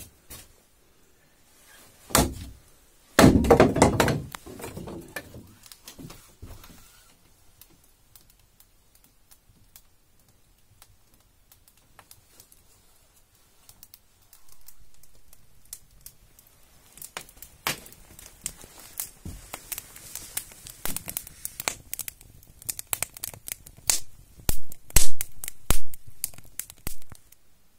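A hatchet striking kindling on a wooden chopping block: a sharp knock about two seconds in, then a longer, louder clatter of wood. Later comes a dense run of snaps and crackles as the kindling catches in a wood-burning stove.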